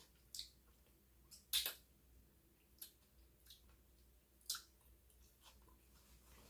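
Close-miked eating sounds during a seafood boil mukbang: soft chewing with a handful of short, sharp wet clicks and crackles, the loudest about one and a half seconds in.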